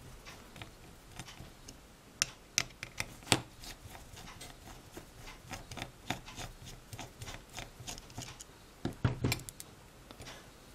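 Screwdriver turning the mounting screw of a power transistor on a small aluminium heatsink: scattered light metallic clicks and scraping, with a few sharper clicks about two to three seconds in and a quick cluster near the end.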